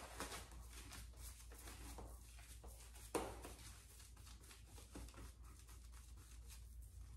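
Faint swishing and scratching of a soft synthetic shaving brush (Phoenix Artisan Accoutrements Phantom Aerolite) working lather on the face, in irregular strokes, one a little louder about three seconds in.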